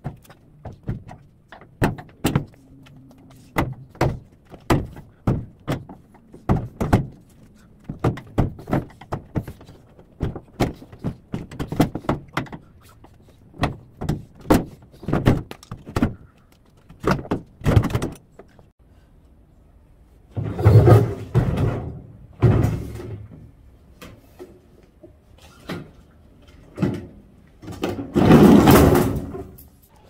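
Sharp knocks and clunks, one or two a second, as the plastic and metal top of a scrapped Samsung top-loading washing machine is worked at with a hand tool. Later come two longer bursts of scraping and rattling as the machine's cabinet is shifted and tipped onto its side.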